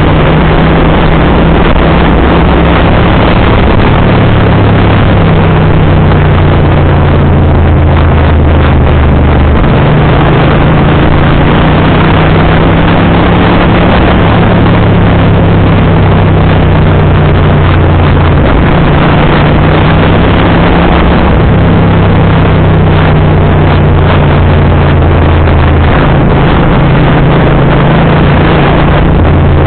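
Naza Cruiser 650cc motorcycle engine heard on board while riding at road speed, its low note shifting in steps several times as the rider changes throttle and gear. A steady rush of wind and road noise runs under it.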